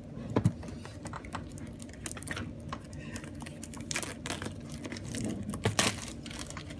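Clear plastic wrap being torn and peeled off a small cardboard product box, with a run of irregular crinkles, clicks and taps of fingers on the box.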